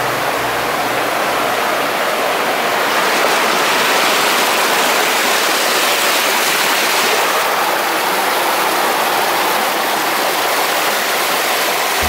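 Rushing white water of a rocky mountain stream, a steady wash of noise.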